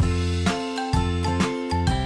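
Background music with a steady beat, notes struck about twice a second over held tones.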